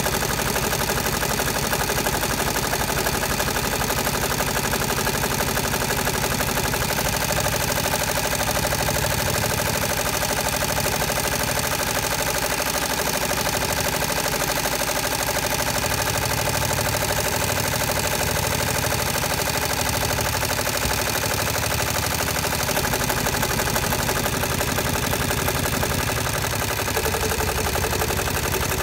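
Multi-needle embroidery machine stitching a monogram into a quilted fabric bag, running steadily with rapid, even needle strokes.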